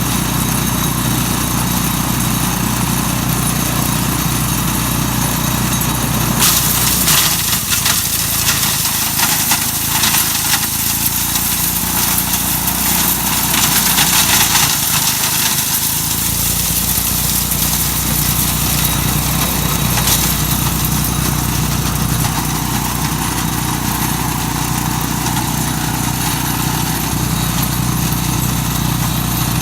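Mighty Mac wood chipper running steadily, grinding black walnuts. From about six seconds in until about sixteen seconds a dense clatter of nuts being shredded rises over the engine, with another short burst about twenty seconds in.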